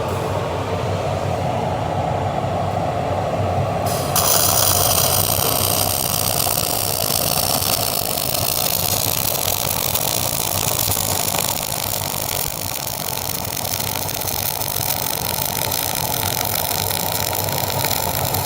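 A fume extractor runs steadily. About four seconds in, a flux-cored wire-feed welding arc strikes on 316L stainless steel pipe and runs with a continuous hiss, laying a cap pass over the first weld, and stops near the end.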